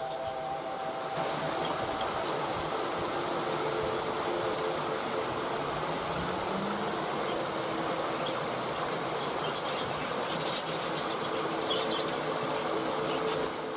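Waterfall rushing in a steady, even roar of falling water. Faint held low tones sit underneath and change pitch a few times.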